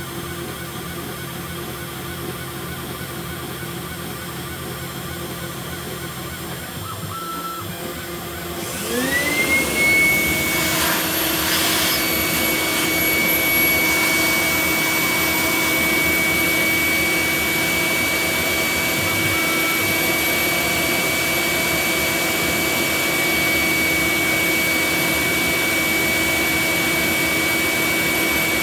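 CNC router spindle running with a steady hum; about nine seconds in a shop vacuum switches on, its motor whine rising in pitch and settling into a steady high whine over rushing air as it sucks chips from around the thread-milling cutter.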